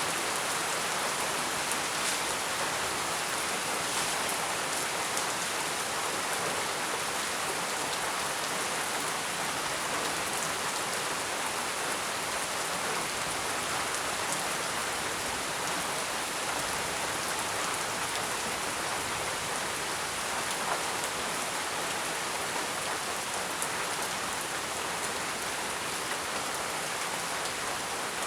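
Heavy rain falling steadily, with a dense even hiss and scattered drop ticks.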